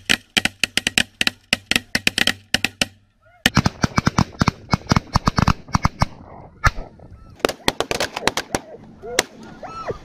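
Snow geese calling: a rapid, overlapping chatter of short high honks from many birds, with a brief break about three seconds in.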